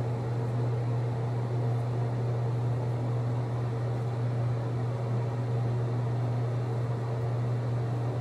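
A steady low hum with an even hiss over it.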